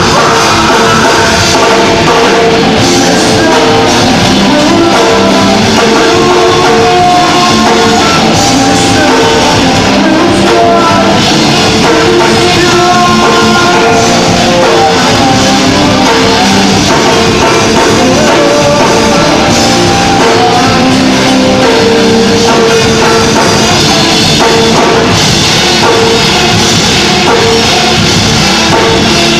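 Loud rock band music with a drum kit and electric guitar, played without a break.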